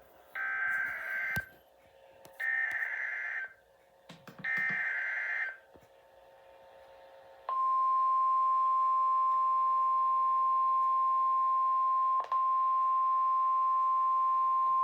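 Emergency Alert System SAME header: three bursts of warbling digital data tones, each about a second long with a short gap between. About seven and a half seconds in, the steady 1050 Hz National Weather Service attention tone begins, with one brief dropout near the twelve-second mark. Together they announce an incoming flood warning.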